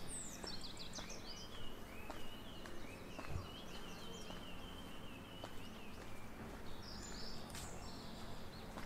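Small songbirds singing and chirping, with a long run of quick repeated notes through the middle, over faint ticks of footsteps.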